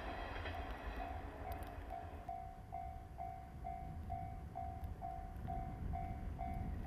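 The noise of a passing electric train fades away over the first couple of seconds. Then a railway level-crossing alarm sounds, an electronic beep repeating a little over twice a second and slowly growing louder, over a low wind rumble.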